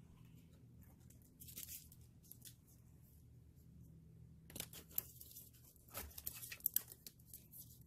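Faint rustling and crinkling of fall decorations being handled and set down among items on a shelf, with a brief crinkle about a second and a half in, then a cluster of light clicks and rustles in the second half.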